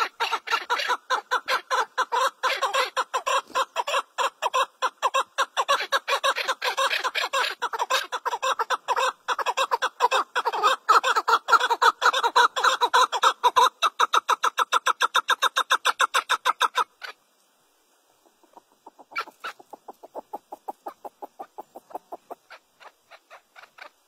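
Chukar partridge giving its rally call: a rapid, rhythmic run of clucking chuk notes, several a second, getting faster and louder before breaking off abruptly about 17 seconds in. After a short pause the calling starts up again, fainter.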